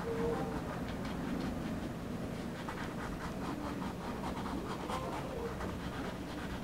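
Nylon flat brush scratching and dabbing acrylic paint onto a stretched canvas in quick, irregular strokes.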